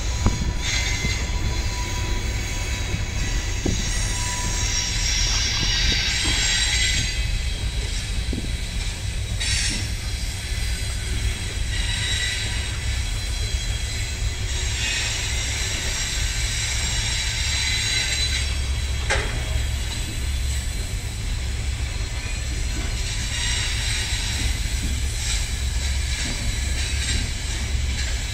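Freight train wagons rolling past: a steady low rumble of wheels on rail, with high-pitched wheel squeal coming and going every few seconds.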